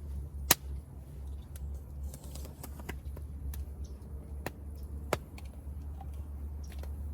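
Campfire burning with irregular sharp crackles and pops, two of them louder: one about half a second in and one about five seconds in.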